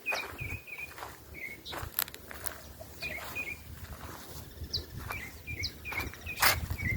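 Several songbirds calling, mostly short chirps repeated at about the same pitch all through, with a few higher whistled notes. Footsteps on dry ground and a few sharp crackles.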